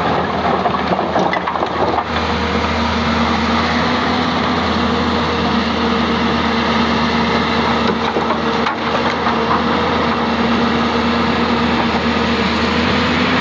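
Hyundai 220-9S hydraulic excavator's diesel engine running steadily under load with a constant hum, while rocks crack and grind as the excavator works the stone fill.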